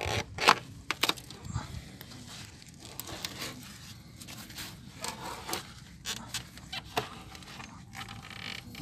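Close handling noise: irregular crackling and rustling with scattered sharp clicks, the loudest about half a second in.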